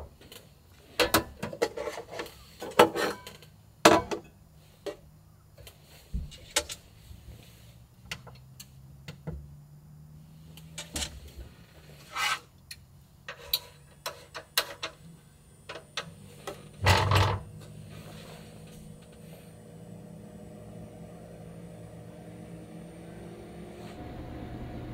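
Clicks, knocks and clatter of objects being handled and set down on a small table while an electric takoyaki plate is set up, the loudest knock at about 17 seconds in. A low steady hum then sets in and slowly grows louder.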